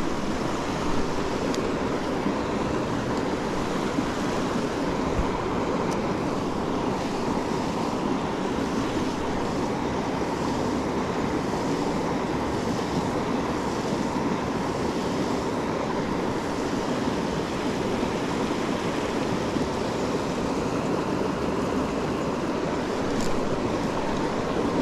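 Steady rush of river water running through fast, broken current.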